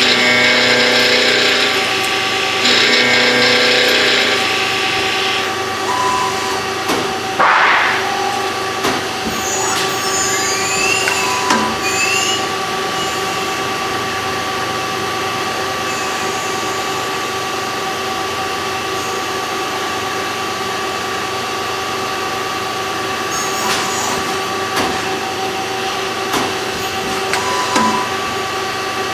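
CNC machine tool running with a steady whine, cutting noise in the first few seconds, a brief rising whine of the spindle changing speed and a few short beeps.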